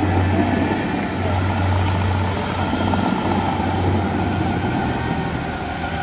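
Dubai Fountain's water jets shooting up and falling back onto the lake: a steady rushing roar with a deep rumble under it that eases off after about three seconds.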